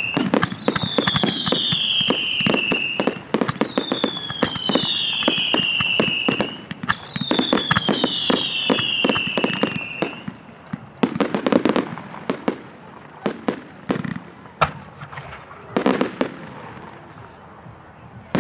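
Firework display: several falling-pitch whistles one after another over dense crackling and bangs for about the first ten seconds. After that come scattered single bangs and short crackling bursts.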